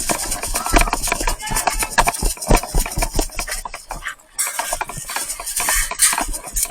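Airsoft guns firing in quick, irregular bursts of sharp clicks and pops, mixed with background shouting.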